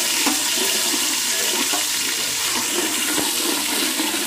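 Green chilli, tomato and onion paste sizzling steadily in hot oil in an aluminium pot, stirred with a metal spatula, with a few faint crackles.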